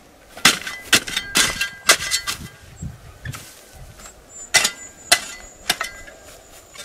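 A metal hoe blade striking dry, hard soil, each chop clanging with a short metallic ring. About five strikes come in quick succession, then a pause of about two seconds, then three more. The hoe is working up the earth into a small basin around a newly planted maguey so rainwater will pool there.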